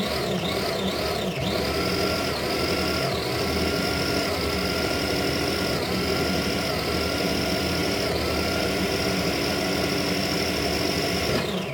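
Electric food processor motor running continuously as its blade grinds edamame into a paste, with a high whine that wavers at first and then dips briefly now and then as the load shifts. It cuts off at the very end.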